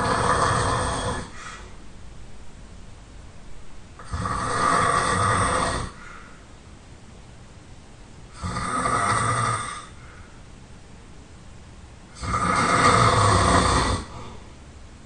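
A person snoring really loud: four long rasping snores about four seconds apart, each lasting a second or two, with quieter breathing between them.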